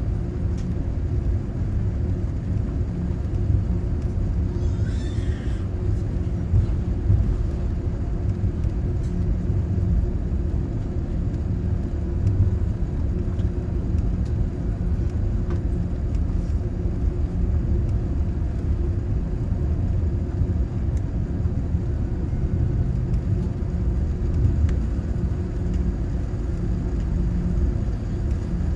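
Steady low rumble of the cabin noise inside a Boeing 787-9 on the ground after landing.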